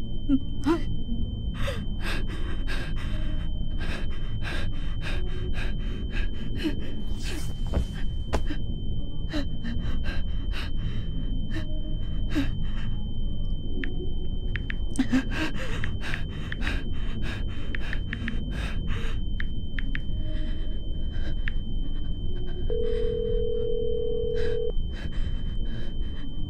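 A person hyperventilating: rapid, ragged gasping breaths in a panic attack, over a steady high-pitched ringing tone and a low rumble. Near the end a phone's ringing tone sounds once for about two seconds.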